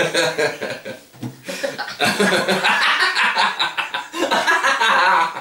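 Several people laughing and chuckling together, in bursts.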